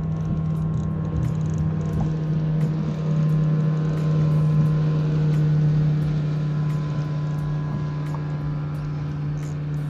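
A steady low mechanical hum with a stack of overtones, like a motor running, swelling slightly in the middle.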